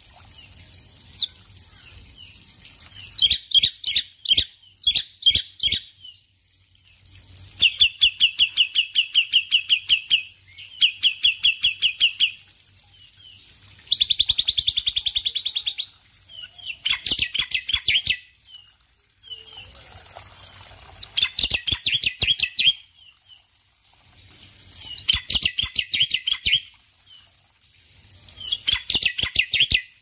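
Male black-winged myna (jalak putih) singing: about eight bouts of fast, evenly repeated harsh notes, each lasting one to three seconds, with short pauses between them.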